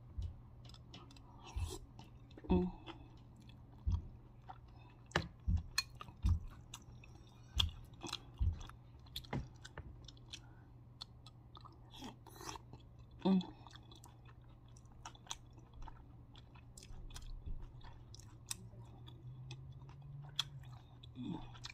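A person chewing and eating spoonfuls of gumbo with rice: wet mouth sounds and scattered short clicks and smacks, over a steady low hum.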